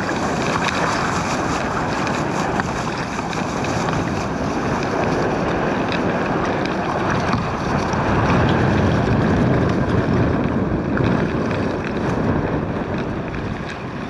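Strong wind buffeting the microphone over choppy water lapping at a kayak, a steady rushing noise that swells a little about eight seconds in.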